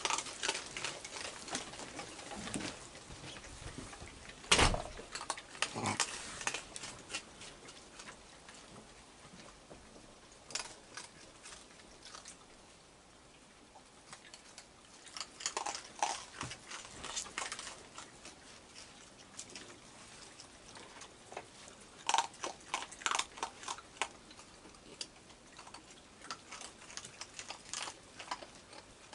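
Raccoons crunching dry food, with scattered sharp clicks and crunches in short runs. A single heavier thump comes about four and a half seconds in.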